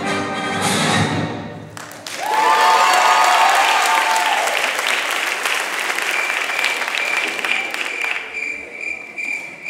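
Music that cuts off about two seconds in, followed by an audience applauding and cheering in a large hall, with a steady high tone over the clapping in the last few seconds.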